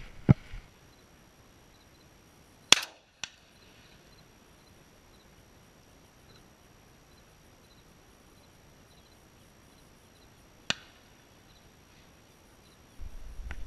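Shotgun shots in the open: a few sharp reports, the loudest about three seconds in, a fainter one about eleven seconds in, and another near the end.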